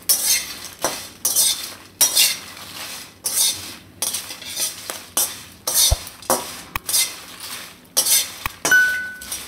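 A flat metal spatula scrapes and tosses dry whole spices (dried red chillies, bay leaves, cinnamon) around a metal kadai while they roast, in quick strokes about one and a half a second. A short beep sounds near the end.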